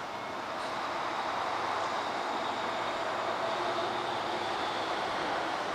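A vehicle passing, heard as a steady rushing noise with a faint hum, growing a little louder over the first second and then holding steady.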